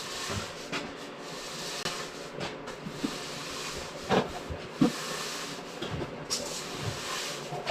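Repeated scratchy strokes of a bristle brush, with two short knocks about four and five seconds in.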